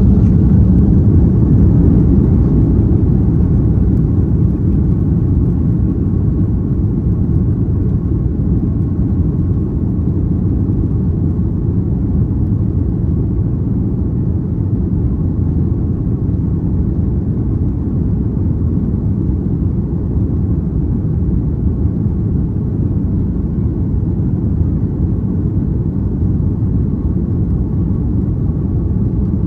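Steady low rumble of a Qantas Airbus A330 airliner's engines and airflow, easing slightly over the first several seconds and then holding even.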